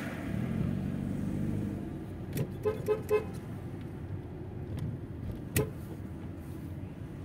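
Car horn giving three short quick toots, over the steady low engine and road noise of a car driving slowly on a town street. A sharp knock comes about two and a half seconds later.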